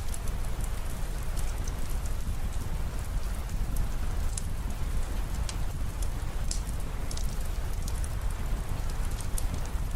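Steady rain falling, with a deep low rumble underneath and scattered sharp ticks throughout.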